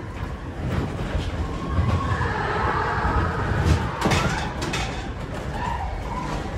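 Matterhorn Bobsleds coaster car running along its steel track. A steady low rumble of wheels on rail, with scattered rattles and clatter from the car.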